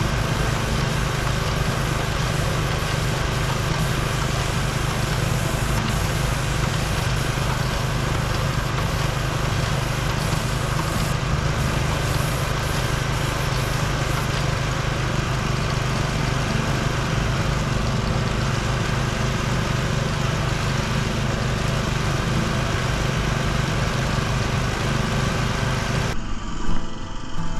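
Small gas engine of an airless line-striping paint sprayer running steadily, with the even hiss of paint spraying from the hand gun. Near the end the hiss drops away abruptly while the engine keeps running.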